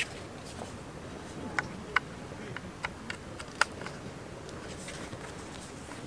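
A few small, sharp plastic clicks and taps, five or six spread over two seconds with the sharpest near the middle, as a USB cable plug and a power bank are handled to connect a heated vest, over a steady low background noise.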